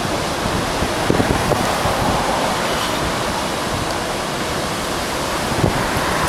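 Big ocean waves breaking, a steady roar of surf.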